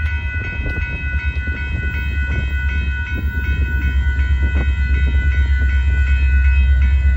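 Railroad crossing bells ringing in a steady, rapid repeat over a low rumble that grows slowly louder as a Norfolk Southern freight train approaches the crossing.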